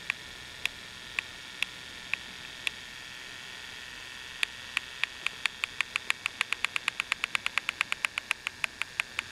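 Sharp, evenly spaced clicks over a steady hiss, about two a second. After a short pause they start again and quicken to about five a second.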